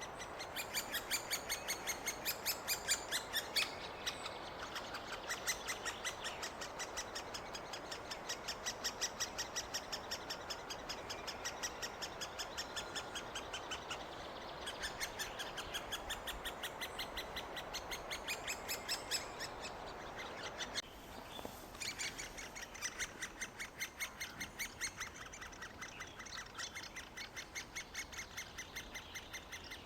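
Great spotted woodpecker nestlings, nearly ready to fledge, calling to be fed: a continuous rapid run of short high calls, about five a second, dropping in level about two-thirds of the way through.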